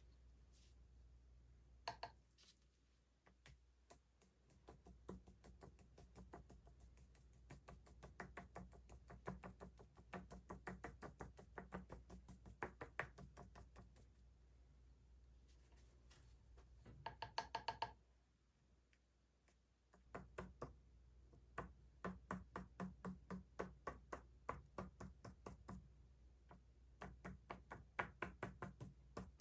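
Dye dauber dabbed repeatedly on leather: runs of quick, light taps, several a second, broken by a short pause about two-thirds of the way through.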